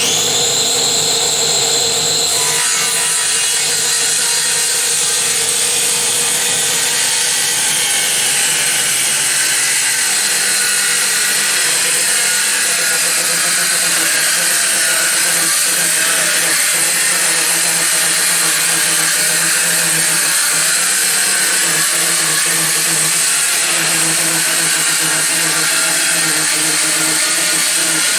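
Parkside PHKSA 20-LI A2 20V cordless circular saw starting suddenly and spinning free with a high whine for about two seconds, then biting into the workpiece and cutting steadily through a long freehand cut.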